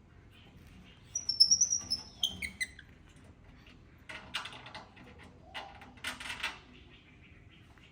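Baby monkey squealing: a run of high-pitched squeaks that step down in pitch over about a second and a half, followed a little later by two short, harsher noisy bursts.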